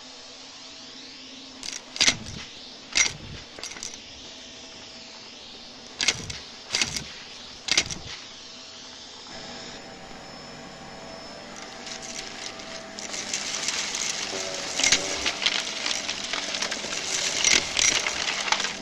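Vacuum cleaner running with a few sharp clicks of debris being picked up. About two-thirds of the way in it turns to a louder, dense crackling rattle as crunchy debris is sucked up.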